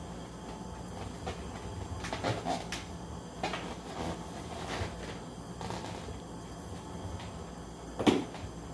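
Handling noises from tying a crappie jig by hand: soft rustles and small taps as the thread bobbin is wrapped around the jig. A single sharper knock comes near the end.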